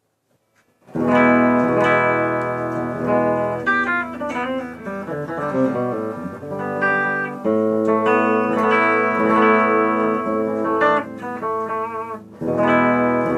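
Greco guitar played clean: chords strummed and left ringing, with a quick run of single notes in the middle. It starts about a second in, and a fresh chord comes in after a short break near the end.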